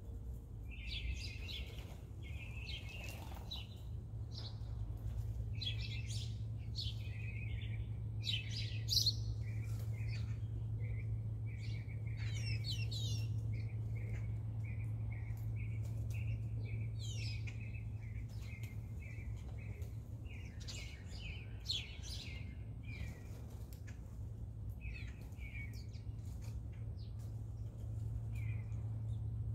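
Small birds chirping and calling over and over, with a quick run of repeated chirps in the middle. A steady low hum runs underneath.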